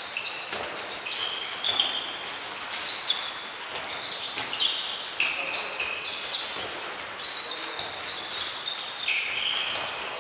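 Several people's athletic shoes squeaking on a sports-hall floor as they run and change direction: many short, high squeaks several times a second, mixed with light footfalls.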